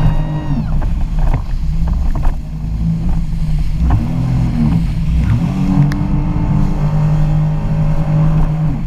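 Jet ski engine running, its pitch falling and rising as the throttle is eased off and opened again: it drops about half a second in, climbs back around four and five and a half seconds, holds steady, then falls away at the end. Water and wind noise run underneath.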